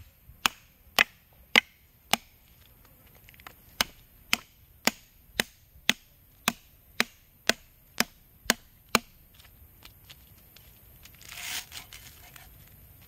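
Cleaver striking lemongrass stalks on a thick wooden chopping block: sharp, evenly paced knocks about two a second, a short run of four or five, a pause, then about eleven more. A brief rustle near the end.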